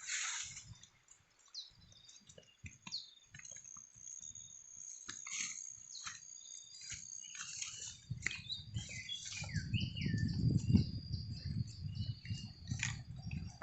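Birds chirping, with many short calls and quick falling whistles over a thin, steady high whine. From about eight seconds in, a low rumble builds up and becomes the loudest sound.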